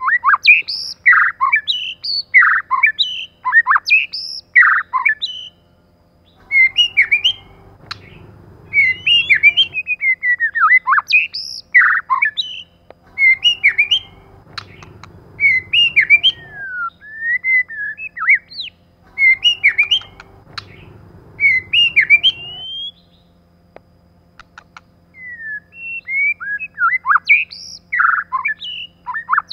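White-rumped shama singing: loud, fast runs of varied whistled and chattering notes, sweeping up and down in pitch, with short pauses between phrases. A low rumble in the background comes and goes three times.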